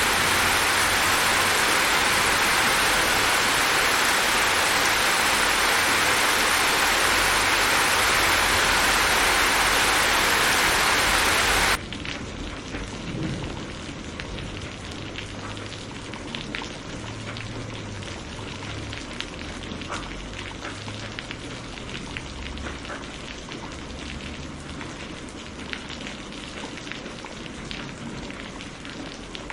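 Heavy rain pouring as a loud, dense, steady hiss. About twelve seconds in it cuts off abruptly to lighter rain, with individual drops ticking and a faint low rumble underneath.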